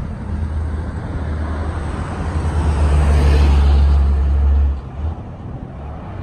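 Formation of jet aircraft passing overhead: a broad jet rush swells to its loudest about three to four seconds in. Under it is a heavy low rumble that stops abruptly near five seconds in.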